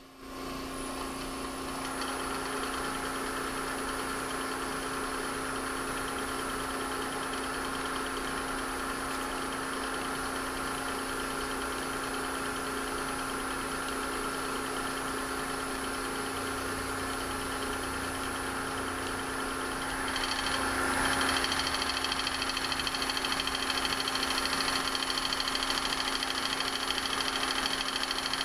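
Powermatic 3520 wood lathe running with a vacuum chuck holding the bowl: a steady machine hum. About 20 seconds in it grows louder and a brighter hiss comes in.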